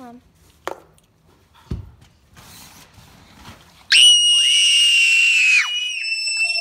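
A young girl's very high-pitched scream, held on one steady pitch, starting about four seconds in; it drops a little in loudness near the end but keeps going.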